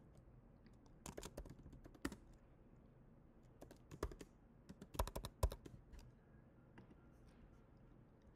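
Keystrokes on a computer keyboard, typed in short bursts with pauses between, the loudest cluster a little past the middle.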